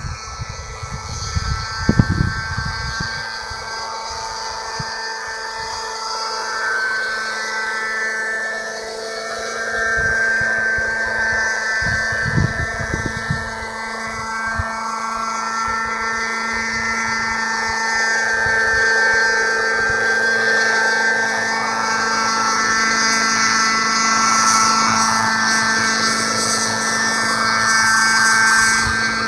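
Radio-controlled Raptor 50 helicopter in a Bell 206 LongRanger scale body, flying: its nitro glow engine's high, steady whine mixed with the rotor, growing louder toward the end as it hovers low and close. Brief low rumbles on the microphone near the start and again around the middle.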